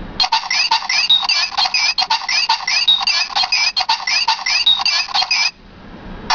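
A handheld toy sound-effects machine playing one of its built-in electronic effects through its tiny speaker: a looped pattern of chirping glides that repeats about every two seconds and cuts off abruptly near the end.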